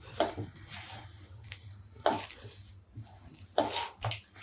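Hands mixing semolina into wet palm-fruit pulp and jaggery in a steel bowl, making a rough dough. A soft, irregular squishing rustle runs through it, with a few louder strokes of the hands against the bowl, about one every second or two.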